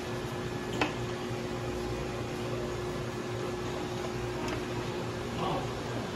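Steady fan hum of running lab equipment with a fixed low tone, and a single light click about a second in.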